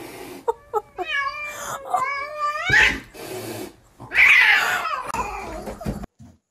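Domestic cat yowling: a few short cries, then a long wavering cry about a second in, and a louder, harsher cry about four seconds in.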